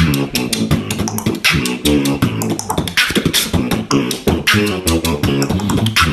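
Beatbox-style vocal percussion: fast sharp clicks and hits mixed with short pitched vocal notes, in a steady rhythm.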